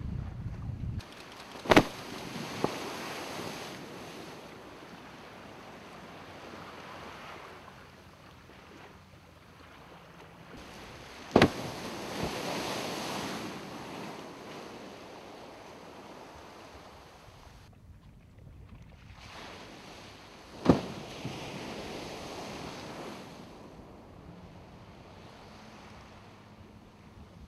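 Wind and sea noise from a boat on open water, broken three times, about nine seconds apart, by a sharp slap followed by a few seconds of rushing water: waves slapping the hull and splashing.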